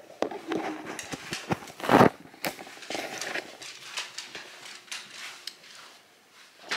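Irregular clicks and knocks of a dog and a person moving about on a hardwood floor, with one louder thump about two seconds in.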